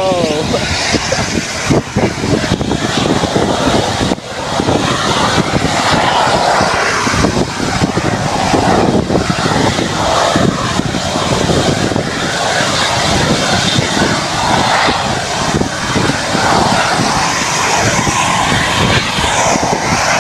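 McDonnell Douglas MD-11F trijet's engines running loud at high power, a steady jet roar with jet blast buffeting the microphone. A falling whine comes in near the end.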